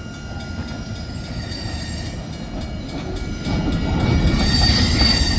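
Freight train rolling past with its wheels squealing: several high steady tones over a rumble that grows louder about three and a half seconds in.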